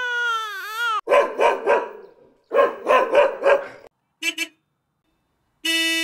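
A sequence of stock sound effects. A baby's cry trails off in the first second, then a dog barks: three barks, a short pause, then about five more. Near the end a car horn gives two short toots and then a steady honk.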